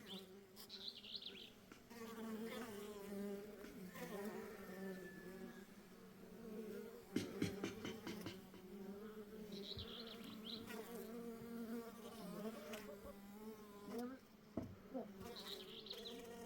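A bee or wasp buzzing close by, a steady drone that wavers slightly in pitch. Three short high chirps come briefly near the start, in the middle and near the end, and a few sharp clicks come about seven seconds in.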